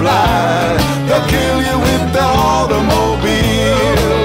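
Background music: a country-rock song with electric guitar and a steady drum beat, in an instrumental stretch between sung lines.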